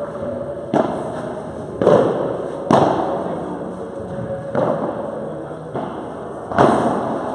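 Padel rally: the ball is struck by rackets and bounces off the court about six times at uneven intervals, each sharp pop echoing in the large hall.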